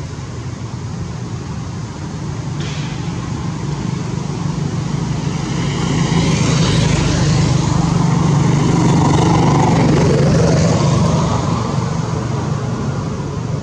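Motor vehicle engine running nearby: a steady low drone that swells louder through the middle and eases off near the end, as if a vehicle passes slowly.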